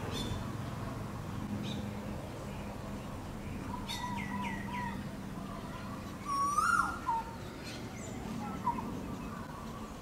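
Asian koel giving the male's mating call: short whistled notes, with the loudest a rising call about six and a half seconds in. A quick series of short repeated notes comes about four seconds in.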